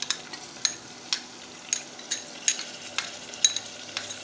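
Steel spoon clinking and scraping against a glass bowl about ten times at an uneven pace, each click ringing briefly, as ginger-garlic paste is knocked out into a pressure cooker. Underneath, onions sizzle faintly in hot oil.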